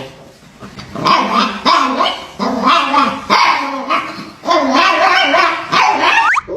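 A pet dog 'talking': a run of about six or seven short barks and growling yowls, one after another, that stops abruptly near the end.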